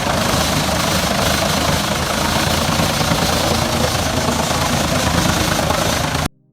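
New Holland diesel tractor running a wood chipper: steady, loud engine and chipping noise that cuts off abruptly near the end.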